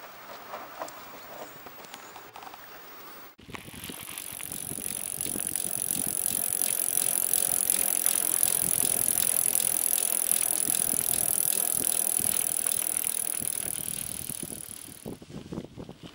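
Mountain bike rolling along a gravel forest path, with tyre noise and a steady high-pitched buzz from the bike. It starts suddenly about three seconds in after a quiet stretch, grows louder over a few seconds, holds, and cuts off near the end.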